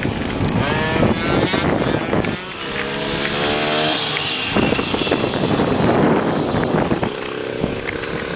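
Off-road motorcycle engine revving hard through the gears as it rides up, its pitch climbing, dropping at each shift and climbing again, then passing close by about four seconds in and carrying on down the track.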